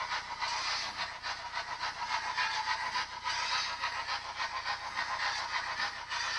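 DCC sound decoder in an OO gauge Princess Pacific steam locomotive model, its small speaker playing fast, even steam-exhaust chuffs with hiss as the model runs.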